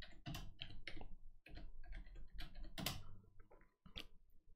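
Typing on a computer keyboard: a quick, irregular run of key clicks that thins out near the end.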